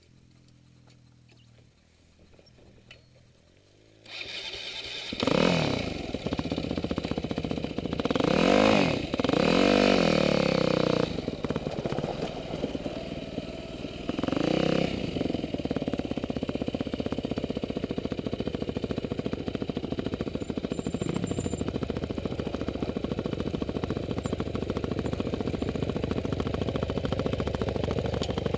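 Yamaha WR250F dirt bike's single-cylinder four-stroke engine starting about four seconds in, revved in a few rising and falling blips, then running steadily as the bike rides down a hill.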